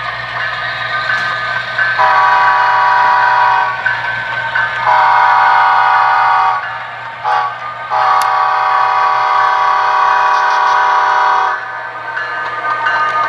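A model diesel locomotive's sound-decoder horn sounding the grade-crossing signal: two long blasts, a short one and a final long one, over the locomotive's steady running sound.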